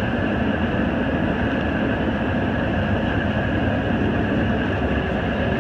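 Combine harvester running steadily while cutting wheat, heard from inside the cab: an even mechanical drone with a faint steady high whine.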